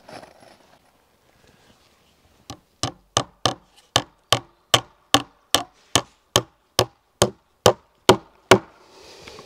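A hammer striking wood in a steady run of about eighteen blows, two to three a second, starting softly about two and a half seconds in and stopping just before the end: a cedar palisade log being nailed to its cross rail.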